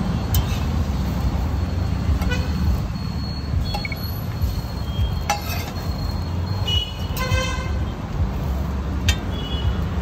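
Road traffic with a steady low rumble, and a few short vehicle horn toots over it.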